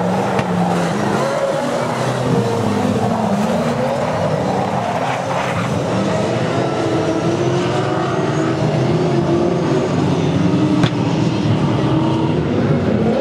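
Several speedway saloon race cars' engines running hard and revving as they lap together, their pitch rising and falling as they pass and go through the turns. A single sharp knock sounds near the end.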